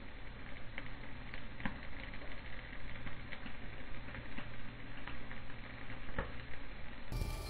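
Homemade tuna-can alcohol stove burning, its flames making a steady rustling hiss with irregular small crackles. Just before the end it cuts to faint music.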